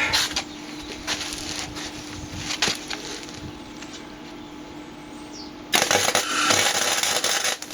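Welding arc crackling for about two seconds near the end: a short weld run on a steel motorcycle rack. A steady hum runs under it, with a few scattered clicks and taps before the weld.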